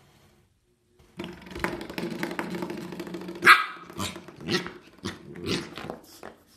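Corgi puppy growling, then yapping in short sharp barks, with one loud bark about three and a half seconds in.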